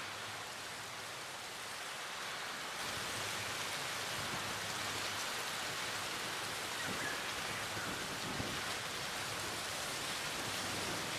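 Steady hiss of gentle waves washing on a sandy shore, a little louder from about three seconds in.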